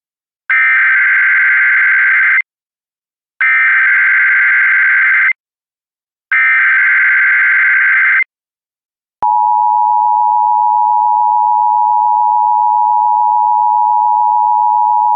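Emergency Alert System tones for a Child Abduction Emergency (AMBER Alert): the SAME digital header, a harsh buzzing data burst sent three times with about a second's gap between. About nine seconds in comes the steady two-tone attention signal, which holds on.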